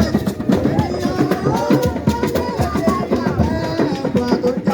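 Music with fast, busy drumming and other instruments.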